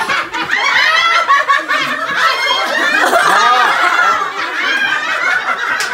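A group of people laughing together, with overlapping voices and chatter throughout.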